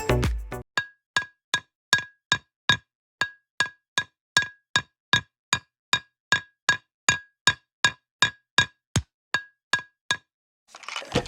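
A long run of sharp, evenly spaced knocks, about two and a half a second, each with a brief ringing ping, stopping about ten seconds in.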